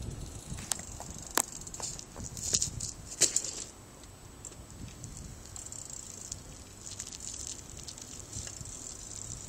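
BMX bike being ridden through tricks on asphalt: a handful of sharp knocks and clatter from the bike in the first few seconds, the loudest about three seconds in, then quieter rolling.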